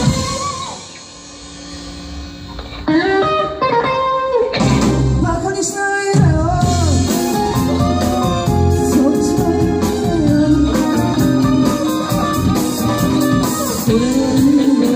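Live rock band playing a song: a woman singing over electric guitar and drums. The band drops to a quieter break about a second in, then comes back in full about three seconds in.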